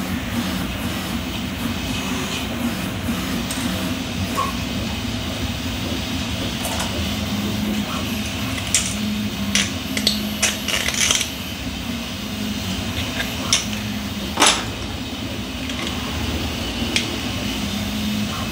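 Hard 3D-printed plastic parts clicking and knocking as they are handled and pressed into place, with a cluster of sharp clicks around the middle and one louder snap a little later. A steady background hum runs underneath.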